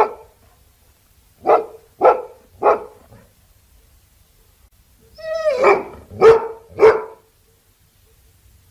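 Labrador retriever barking: three quick barks about half a second apart, a pause, then a drawn-out whining bark that runs into two more barks.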